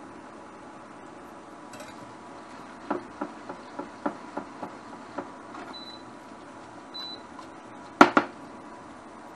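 Metal tongs clacking against a frying pan while spaghetti is tossed in sauce: a run of quick clicks, about three or four a second, then a loud double clack near the end. Two short high beeps come in between, over a faint steady hum.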